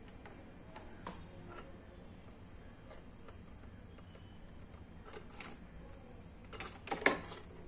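Faint scattered clicks and taps from handling a small circuit board and soldering tools on a work mat, with a short cluster of louder knocks about seven seconds in, the loudest near the end.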